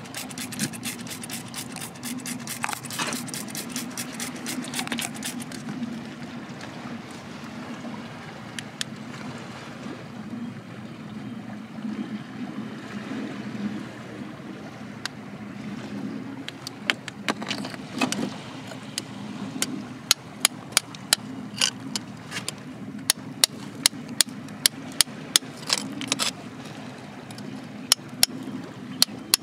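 A hammer tapping a small steel chisel into rock: sharp, metallic taps about two a second from around twenty seconds in. Before that, quick fine clicking from a hand spray bottle being pumped, over a steady low hum.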